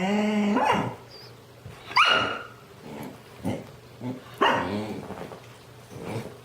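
A dog vocalizing in a run of calls: a long wavering yowl at the start, then shorter bark-like calls and another drawn-out call about two-thirds of the way through.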